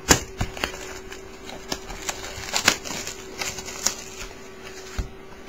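Trading card box and packs being handled and opened: scattered light clicks and crinkles of cardboard and foil wrapper, over a faint steady hum.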